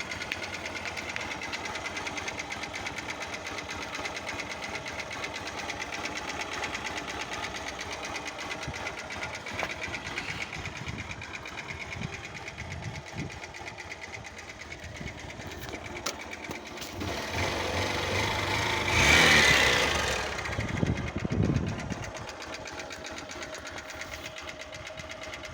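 Honda CG 125 Fan's air-cooled single-cylinder four-stroke engine idling with a rhythmic knock, which the owner suspects is the connecting rod or the piston. The engine is briefly revved about two-thirds of the way through, then drops back to idle.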